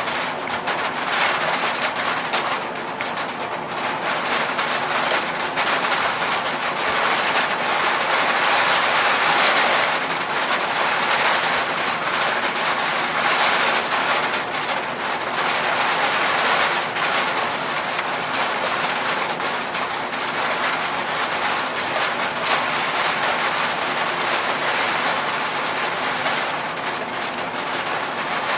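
Rain drumming on an aluminium roof: a dense, steady patter that swells a little and eases off again.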